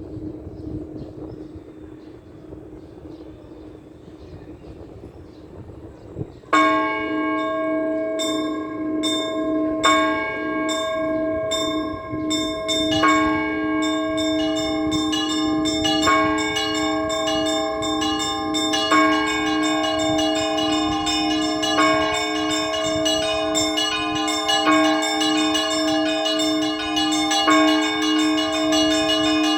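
Russian Orthodox church bells. After about six seconds of a low lingering hum, a full peal begins: small bells ring rapidly over a heavier stroke about every three seconds.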